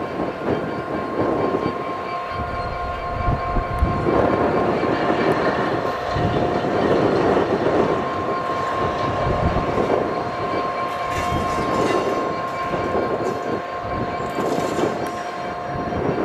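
Diesel freight locomotives running at low speed: a Class 60 and a Class 66 moving past on adjacent tracks. Their engines run steadily under a continuous high-pitched whine.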